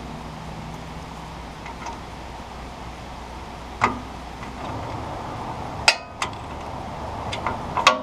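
Metal hand tools clinking against the steel track wheel and lock nut of a Woodland Mills HM122 portable sawmill: a handful of sharp, irregular clinks starting about four seconds in, the loudest near six seconds, over a steady low hum.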